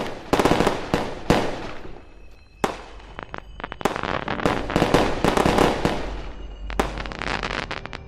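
Fireworks bursting and crackling: a run of sharp bangs, some single and some in rapid clusters, each with a decaying tail.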